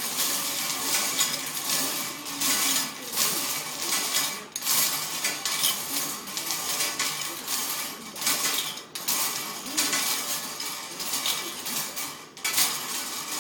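Bingo balls clattering and tumbling in a spinning cage, a continuous rattle that drops out briefly about every four seconds.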